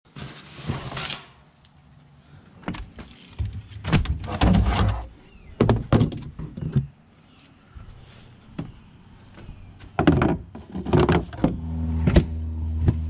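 A fabric grill cover swishes as it is pulled, then a run of knocks and thuds as fibreglass boat hatch lids and a plastic cooler lid are opened and shut. A steady low hum starts near the end.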